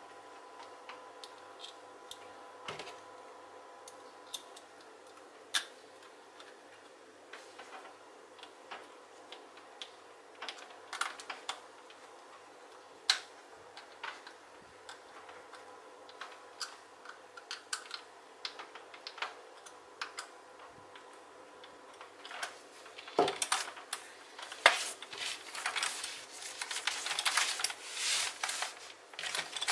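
Scattered light clicks and taps of hands working small metal screws to fix a handle onto a handbag, over a faint steady hum. In the last several seconds the clicks come thick and fast, with rustling as the bag is handled.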